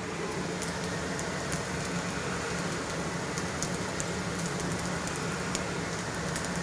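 Polenta rounds sizzling on a hot stovetop griddle: a steady hiss with scattered small crackles, over a low steady hum.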